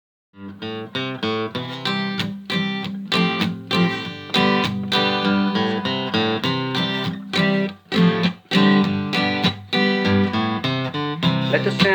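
Guitar strumming chords in a steady rhythm as the instrumental intro to a worship song, starting just after the opening.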